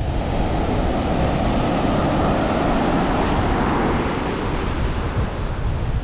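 Big ocean waves breaking and washing up the beach, one surge swelling about a second in and easing off by four seconds, with wind buffeting the microphone.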